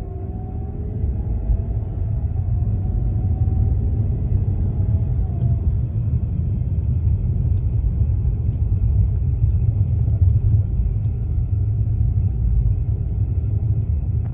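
2011 BMW E92 328i accelerating from a stop: a thin whine in two tones that slowly rises in pitch over the car's low rumble, then fades out about five seconds in, leaving the steady rumble of the car under way. The whine persists after the alternator, belt, belt tensioner and power steering pump were all replaced, so none of these is its cause.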